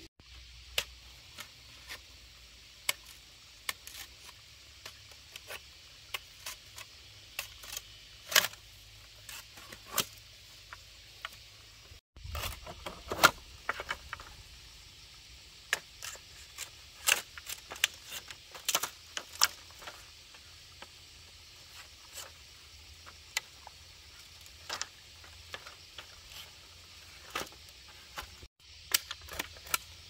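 Irregular sharp clicks and light scraping of hand work, a few a second, stopping briefly about 12 seconds in and again near the end.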